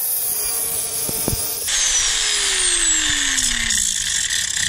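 Electric angle grinder with a cutoff wheel cutting through steel. About a third of the way in the cut grows louder and harsher, and the motor's pitch then sinks steadily as it bogs under the load of the cut.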